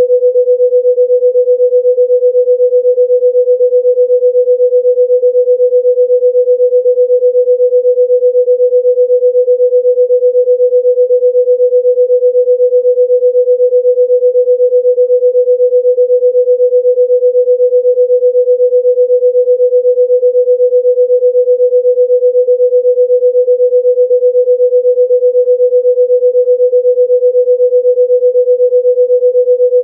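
A single steady, mid-pitched pure tone, held unchanged and fairly loud, as played for sound healing.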